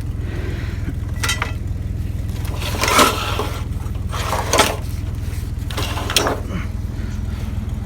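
Several short clanks and scrapes of scrap metal being picked up and handled, about four in all, the loudest about three seconds in, over the steady low hum of an idling truck engine.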